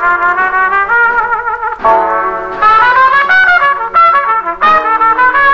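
Background music: a melody of held notes that waver in pitch, over a quieter accompaniment.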